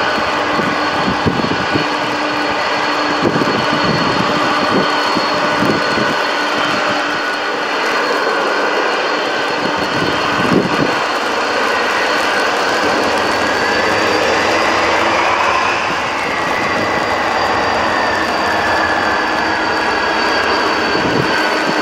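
Boeing 747's four jet engines running at low taxi power, a steady jet whine with several high tones; partway through, one tone rises in pitch. A few short low thumps come in the first half.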